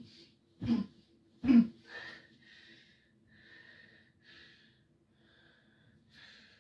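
Two heavy thumps of blows landing on a mattress, about a second apart, followed by a man's heavy breathing, one breath roughly every second.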